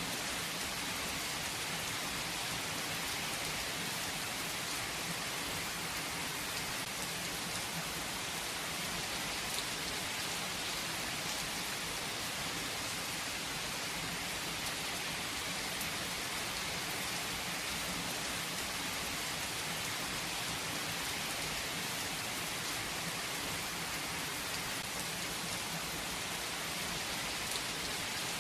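Steady rain falling, an even unbroken hiss that is strongest in the upper range.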